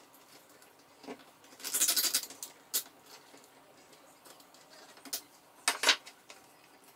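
Hands handling cables and plastic parts in a CNC machine's cable chain: rustling and sharp plastic clicks, with a rasping burst about two seconds in as a zip tie is pulled tight around the cables, and a cluster of clicks near the end.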